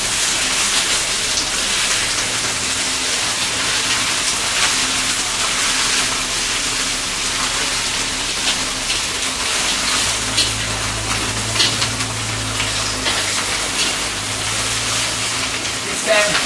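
Choi sum being stir-fried in a hot wok: a steady sizzle with many sharp crackles over a low hum. The crackling is water on the greens spitting in the hot oil, a sign they still hold moisture; once it stops, the pan is drying and the greens start to stick.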